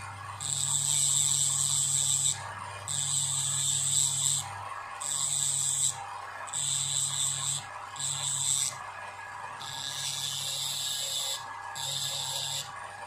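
Small electric drill running in repeated on-off bursts of about one to two seconds, grinding away the glue over an eMMC chip on a phone's circuit board.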